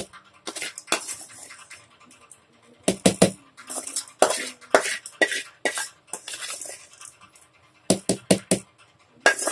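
Steel spoon clinking and scraping against a metal bowl in irregular clusters of sharp taps and short scrapes as tempered onion seasoning is stirred into idli batter.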